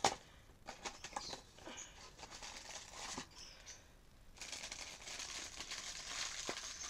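A small cardboard blind box being torn open, with a sharp rip at the start and scattered short rustles, then from about four seconds in the shiny black plastic bag inside it crinkling steadily as it is handled.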